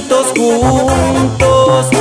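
Mexican banda-style brass band playing an instrumental passage: a brass melody over a sousaphone bass line.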